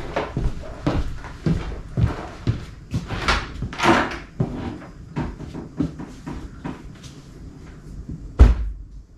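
Cardboard food boxes handled and set on pantry shelves: a run of light knocks, scrapes and rustles, busier around three to four seconds in, with one loud thump near the end.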